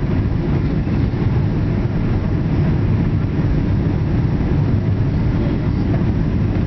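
Steady low rumble of engine and airflow noise inside a Boeing 777's passenger cabin as it descends on approach to land.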